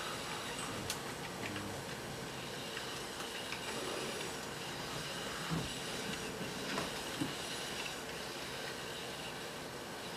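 HOAP humanoid robot whisking eggs in a plastic bowl: steady mechanical whirring and hiss from the moving arm, with a few light clicks of the wire whisk against the bowl.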